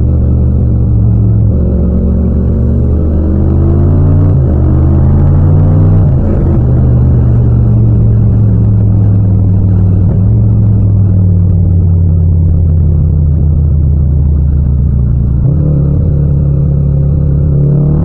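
Yamaha MT-07's 689 cc parallel-twin engine under way. It revs up through two upshifts in the first six seconds, then runs at steady revs, with a change in revs near the end.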